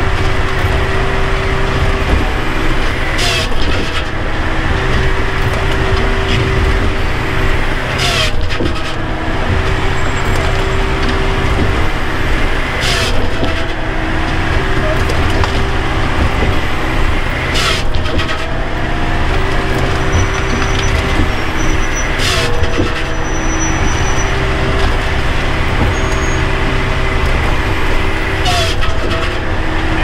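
Bells 4000 firewood processor running, heard from inside its cab: a steady engine and hydraulic drone with a sharp crack about every five seconds as the machine works through logs.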